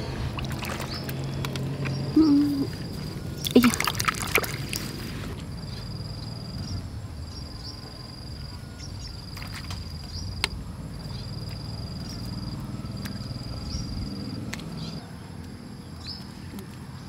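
Hands digging in wet mud and shallow puddle water, with a cluster of squelches and splashes about four seconds in. A short high chirp repeats every second or so in the background.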